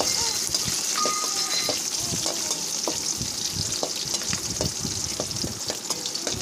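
Sliced onion, green chillies and mint sautéing in hot oil in a metal pan, with a steady sizzle, while a metal ladle stirs and scrapes against the pan in repeated short strokes.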